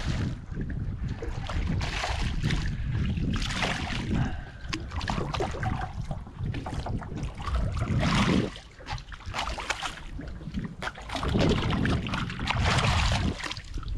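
A hooked redfish splashing at the water's surface beside the boat in irregular bursts as it is reeled in and grabbed by hand, with wind rumbling on the microphone throughout.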